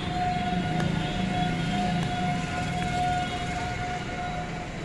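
Locomotive horn sounding one long, steady note that stops about four and a half seconds in.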